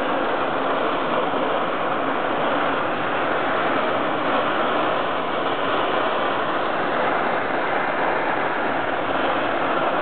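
Lit burners of a Coleman 524/525 white-gas stove burning with a steady rushing hiss.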